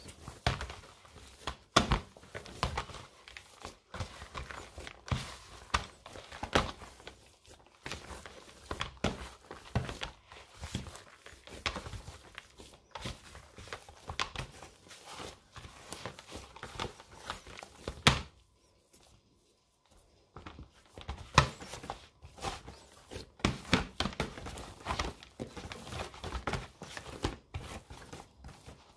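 Pastry dough being mixed in a bowl: irregular soft knocks, thuds and squelches, stopping for about two seconds some two-thirds of the way through.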